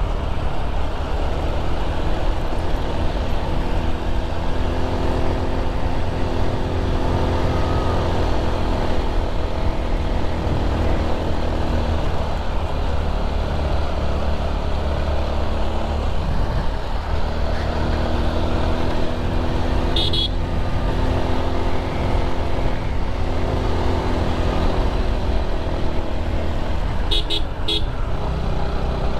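Motorcycle engine running under way, its pitch rising and falling with the throttle, over heavy wind noise on the helmet microphone. A short horn beep sounds about two-thirds of the way in, and two more come close together near the end.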